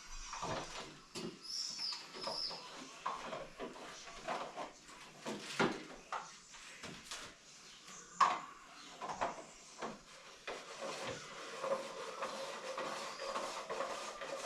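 Scattered knocks, clicks and scrapes of shower-base parts being handled and fitted, with the loudest knock about eight seconds in. A short high squeak comes about two seconds in.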